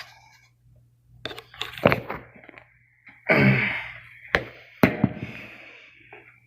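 Handling noises: a few sharp knocks and clunks of objects being picked up and set down, with a short rushing noise in the middle.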